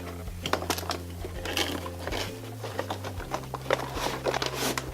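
Cardboard and plastic toy packaging being handled and rustled as a playset is worked out of its box, a run of scrapes and clicks.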